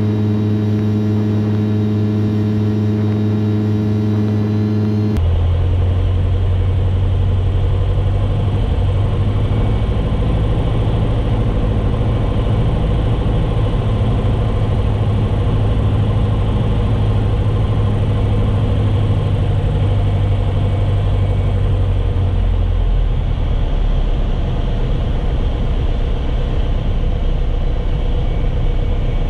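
Single-engine Piper Archer's piston engine and propeller droning steadily on final approach. About five seconds in, the sound switches abruptly to a noisier rumble of engine, propeller and rushing air. Near the end the low drone eases as the plane rolls out on the runway.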